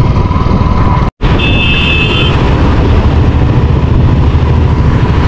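Motorcycle engine running at road speed, with wind noise on the microphone. The sound drops out for an instant about a second in, and shortly after a short, high, steady beep sounds for about a second.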